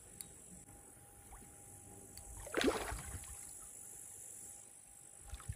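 A hooked carp breaking the surface close in, one short splash about two and a half seconds in, with water churning briefly after it.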